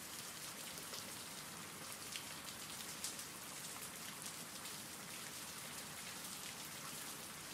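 Steady rain falling, an even hiss with scattered ticks of individual drops.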